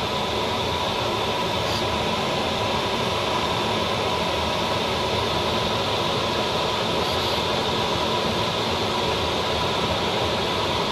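Steady rush of air over the canopy heard inside the cockpit of a Duo Discus glider in flight. The glider has no engine, so the noise is all airflow.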